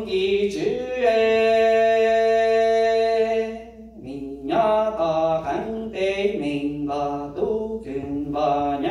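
A man singing a Hmong txiv xaiv funeral song into a handheld microphone, in a chanting style. About a second in he holds one long note for nearly three seconds, then moves into shorter phrases that step up and down in pitch.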